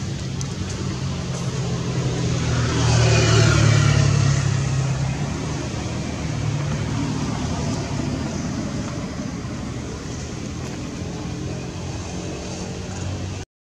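A motor vehicle's engine running steadily, swelling as it passes about three to four seconds in, then fading slowly.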